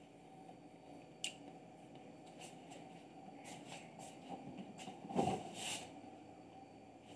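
Several cats chewing and eating food from a plastic tray, giving faint scattered clicks and wet chewing sounds, with one louder scuffing noise about five seconds in.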